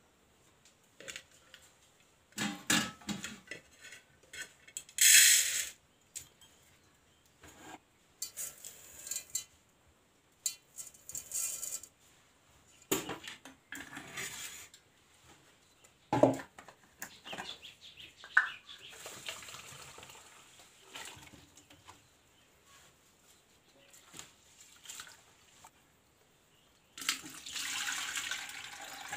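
Metal cooking pots and lids handled at a clay stove: scattered clinks, knocks and scrapes as a lid is lifted and cooked rice is scooped out of the pot. A longer rushing, hissing noise comes near the end.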